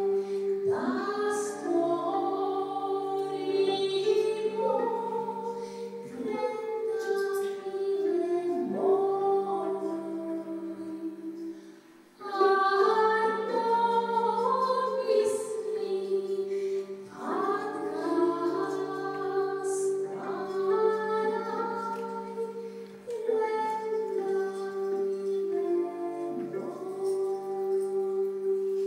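Live Serbian folk-style song: a woman sings an ornamented melody with sliding notes over a steady drone, with violin and double bass. The music breaks off briefly about twelve seconds in, then starts again.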